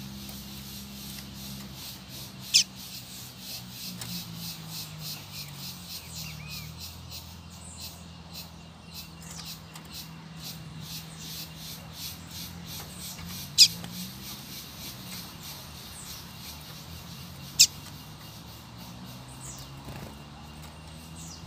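A caged coleiro (rusty-collared seedeater) gives three short, sharp, downswept call notes: one about three seconds in, one near fourteen seconds and one near eighteen. Behind them runs a rapid high ticking chirping, with a low hum rising and falling in pitch.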